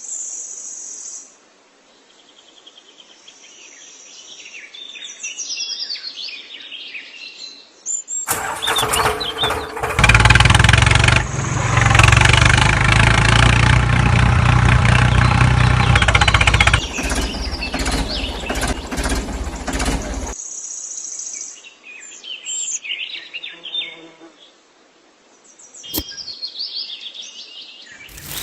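Birds chirping. About eight seconds in, a loud, steady machine-like noise with a low hum comes in. It cuts off around twenty seconds in, and the chirping returns.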